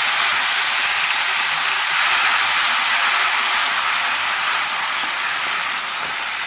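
Chopped tomatoes sizzling in hot oil in a steel kadai while a wooden spatula turns them: a steady hiss that slowly dies down.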